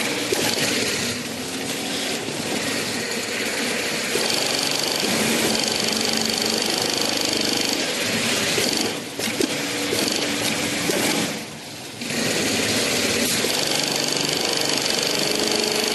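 Industrial FIBC jumbo-bag sewing machine running and stitching, a loud dense mechanical clatter with a high whine that comes and goes. It briefly drops away twice, about nine and eleven seconds in, before running on.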